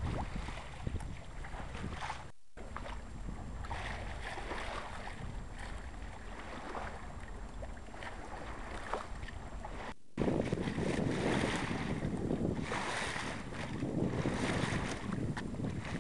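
Wind buffeting the microphone over the rush of water along the hull of a sailboat under sail. The sound cuts out briefly twice, about two and a half and ten seconds in, and after the second break the wind rumble is louder.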